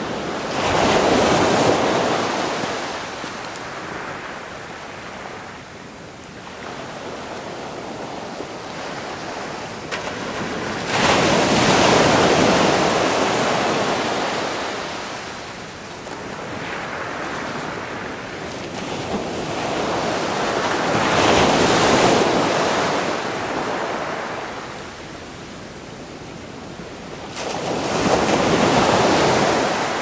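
Rushing noise that swells and fades in slow surges, four of them several seconds apart, each rising to a loud peak and ebbing away like breaking surf.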